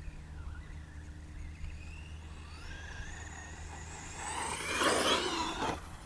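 Traxxas E-Revo brushless RC truck on a 6S LiPo, its electric motor and drivetrain whining in rising and falling pitch as it speeds over dirt. The whine swells to its loudest as the truck passes close about five seconds in, then falls away.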